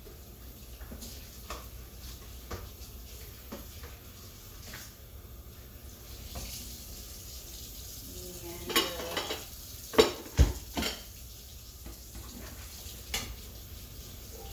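Dishes, pots and cutlery being handled and stacked as they are taken out of a kitchen sink: scattered light clinks, then a run of loud clanks about nine to eleven seconds in, one of them ringing briefly like struck metal or crockery.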